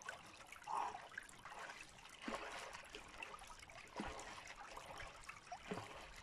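Shallow lake water lapping and trickling gently over stones at the shore, with a few short soft plops.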